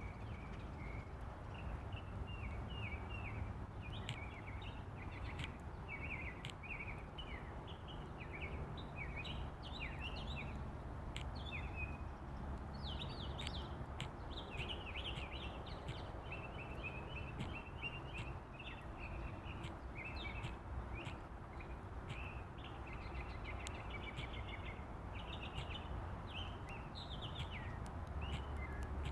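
Mockingbird singing a long, unbroken run of short, varied phrases, over a steady hiss of rain with a low rumble and scattered sharp clicks.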